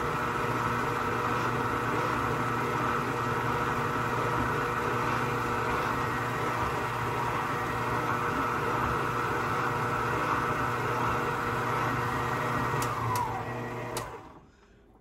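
Electric mixer motor running steadily with a dough hook kneading bread dough, a constant hum with a whine over it. Near the end the motor winds down, its pitch falling, and stops.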